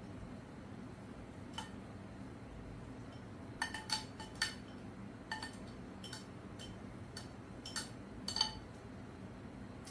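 Light clinks and taps of a glass bowl and a plastic pasta server against a stainless steel mixing bowl as crab meat is tipped and scraped out. About a dozen short clinks with a faint ring, most of them around four seconds in.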